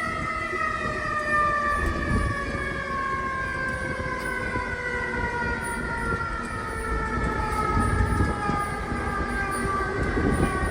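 Fire siren slowly winding down, its whine of several tones falling steadily in pitch, with a few low rumbles underneath.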